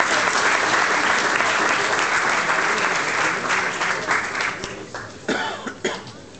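Audience applauding at a snooker match, the clapping dying away about four to five seconds in, with a few voices after it.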